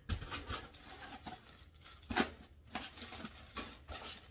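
Packaging being handled while a Halloween broom is unwrapped: irregular rustling with scattered clicks, the loudest one about two seconds in.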